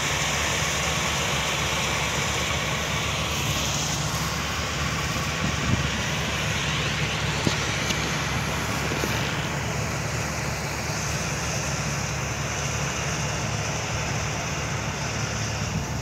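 Combine harvester running steadily in the field: a continuous engine and machinery drone with no pauses.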